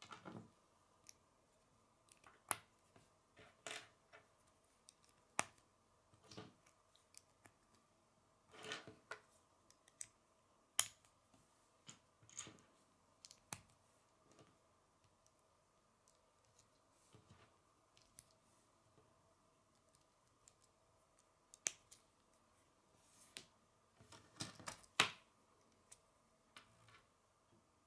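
K'nex plastic rods and connectors clicking and snapping together as they are fitted by hand. The clicks are sparse and irregular, with a small cluster near the end, over a faint steady hum.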